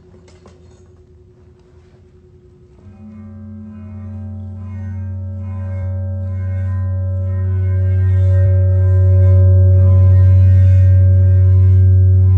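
Large round Chladni plate sounding a sustained deep hum with a stack of ringing overtones, driven by a rubber-ball mallet rubbed at its rim. The hum starts about three seconds in and swells steadily louder. Its vibration sets the sand on the plate into a pattern of lines.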